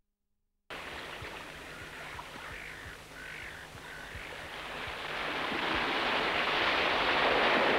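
Small waves washing in over sand and rocks at the shoreline, a steady wash that swells louder over the last few seconds. It begins after a brief dead silence at the start.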